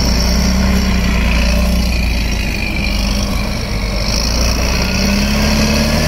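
Cat D7R bulldozer's diesel engine running steadily under the operator. The engine note sags a little in the middle and picks up again near the end.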